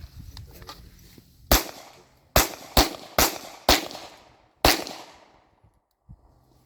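Six handgun shots fired in quick, uneven succession during a draw-from-concealment drill, the first about a second and a half in and the last near five seconds, each followed by a brief ringing tail.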